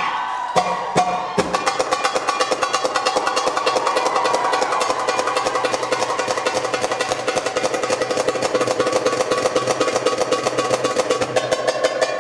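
Arabic tabla (darbuka) drum solo music: a few single strokes, then, about a second and a half in, a fast continuous roll of rapid strokes over a steady held melodic tone.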